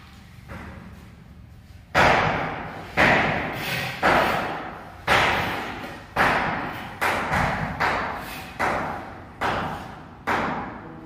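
Mason's steel trowel knocking and scraping on wet cement at a concrete chamber cover, about one stroke a second. Each stroke starts with a sharp knock and tails off. The strokes begin about two seconds in.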